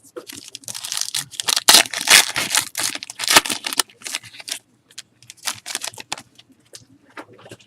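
Trading cards and their packaging being handled: a busy stretch of rustling and sliding for the first few seconds, then scattered short clicks and slides as the cards are flipped.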